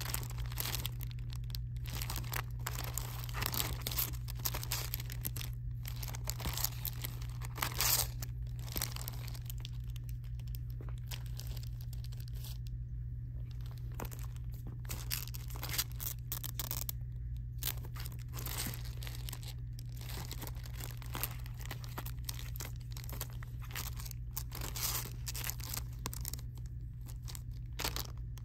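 Clear plastic wrapping on sticker packs crinkling and crackling as fingers handle and press them, in irregular bursts over a steady low hum.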